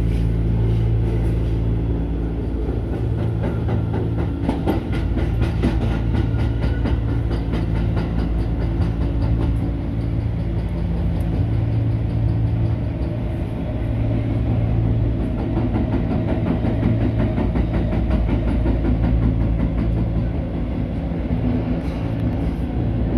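Tokyo Metro Marunouchi Line subway train running, heard from inside the passenger car: a steady rumble and low hum, with a run of fast clicks through the first half.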